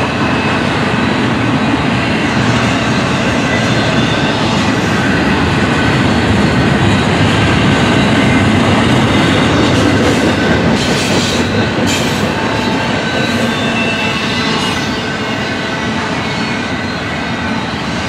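Double-stack intermodal container freight train rolling past: the steady rumble and clatter of steel wheels on the rails as the well cars go by.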